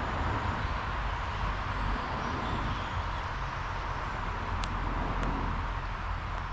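Steady outdoor ambience: a continuous low rumble and hiss, with one brief sharp click about four and a half seconds in.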